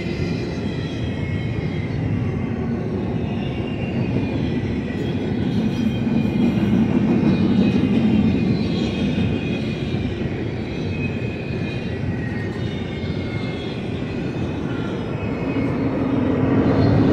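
BNSF double-stack intermodal train's container well cars rolling past, a steady rumble of steel wheels on rail that swells a little about six to eight seconds in.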